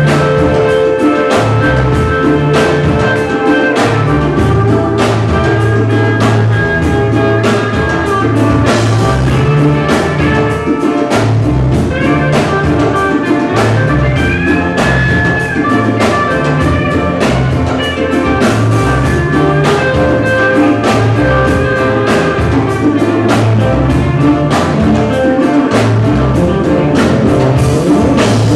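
Ska band playing live: drum kit keeping a steady beat under a walking bass line, with a hollow-body electric guitar and held melody notes over the top.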